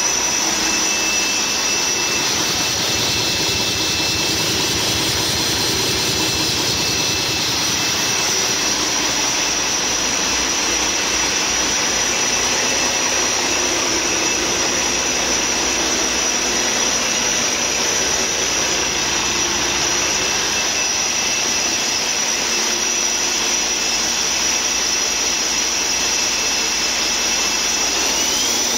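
2015 Cummins ISX15 inline-six diesel running on a test stand, with a steady high whine over the engine. Near the end a tone in the whine rises sharply in pitch.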